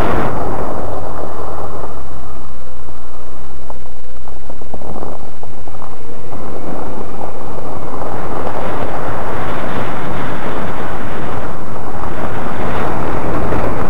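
Cadillac CTS spinning donuts in snow: the engine running under throttle while wind rushes loudly over a microphone on the outside of the car. A steady low drone runs through the first few seconds before the noise becomes rougher and more uneven.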